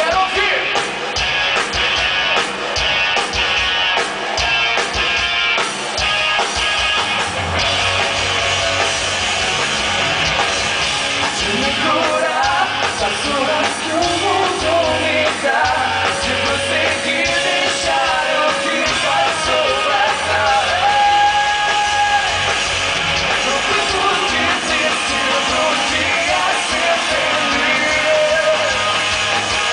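Rock band playing live through a concert PA, heard from within the crowd: drums, electric guitars and keyboard. Drum hits beat steadily at first, the band fills out, and sung vocals come in about twelve seconds in.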